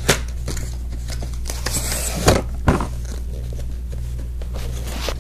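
Cardboard product packaging being handled and pulled out of a box, with a few knocks and a brief rustling scrape about two seconds in. A steady low electrical hum runs underneath.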